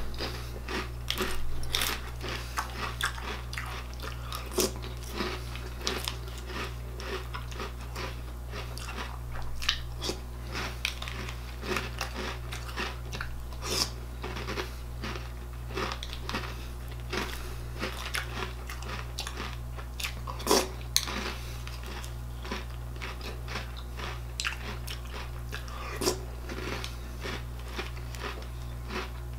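A person chewing a spoonful after spoonful of crunchy breakfast cereal, a mix of Reese's Puffs and cinnamon-square cereal: a steady run of irregular crisp crunches, some bites sharper and louder than the rest, over a steady low hum.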